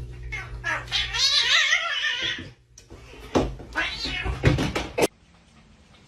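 A cat yowling: a long, wavering meow about a second in, then noisier cries a couple of seconds later.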